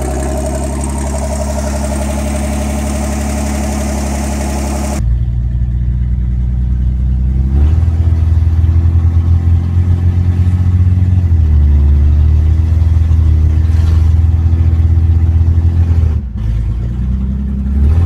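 Carbureted Chevy S10 pickup engine running steadily under an open hood, just brought back to life. About five seconds in, it is heard from inside the cab while driving: a deeper, louder engine note that dips and climbs a few times.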